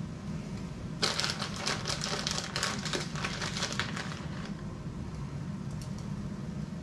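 Plastic bag of shredded mozzarella crinkling as it is shaken out over a frying pan, a dense crackle lasting about three and a half seconds, over a steady low hum.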